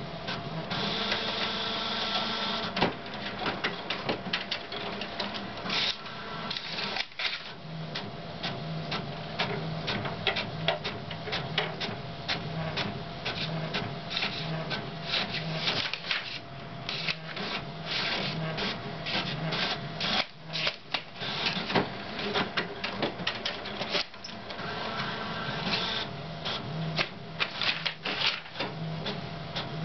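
All-in-one fax printer printing pages, its mechanism clicking and whirring in a steady repeating rhythm as sheets feed out.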